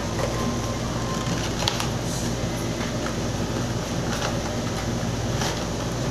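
A steady mechanical hum and rumble runs throughout. Over it come a few light clicks and scrapes as a cardboard box is handled and its plastic inner tray slid out.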